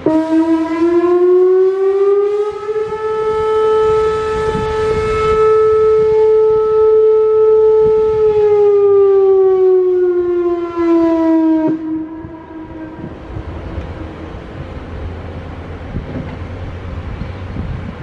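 Whelen Vortex electronic outdoor warning siren sounding its short noon test: one tone that rises over the first couple of seconds, holds steady, then slides down and cuts off about twelve seconds in. Its loudness swells and dips as the rotating horns sweep round. Wind noise on the microphone follows.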